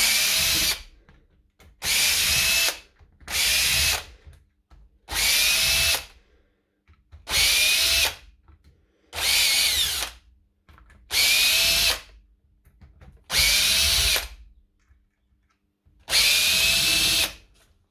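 Power drill-driver backing out screws in nine short bursts, each about a second long and roughly two seconds apart, the motor's pitch rising as each burst starts.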